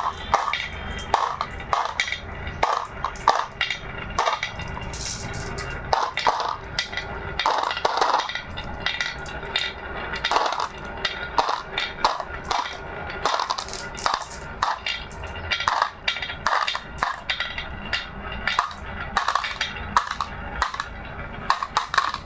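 Marbles rolling and clacking down a wooden HABA marble run, a dense, irregular stream of clicks and knocks.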